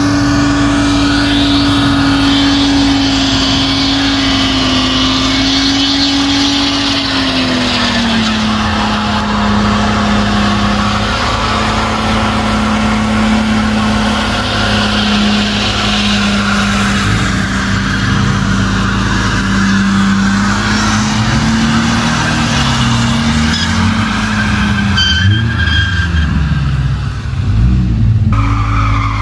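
Car engine held at high, steady revs in a burnout, with the tyres spinning and squealing. The revs drop a little about seven seconds in, then hold.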